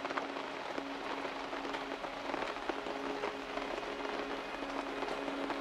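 Rain falling steadily on the campsite: a dense, even hiss made of many small drop ticks.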